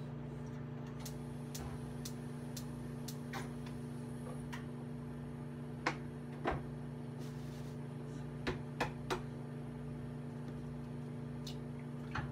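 Steady low hum of a kitchen appliance motor, with a few light clinks and knocks of kitchenware on the counter, several bunched in the middle and one near the end.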